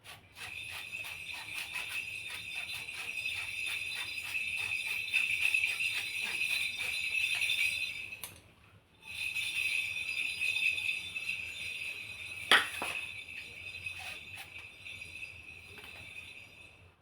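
Metal flour sieve shaken and tapped while sifting flour, giving a rapid rhythmic metallic jingling rattle. It breaks off briefly about halfway, then goes on, with one sharp knock against the sieve or bowl partway through the second half.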